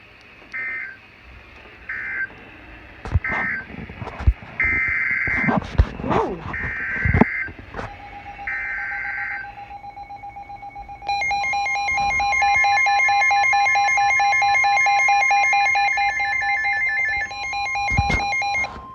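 Emergency Alert System tones. First come six short, shrill digital data bursts: three brief ones, which are the end-of-message code of the first flood warning, then three longer ones, which are the header of the next warning. A few sharp knocks fall among them. About eleven seconds in, a loud steady alert tone starts, made of two tones sounding together, and it holds for about eight seconds.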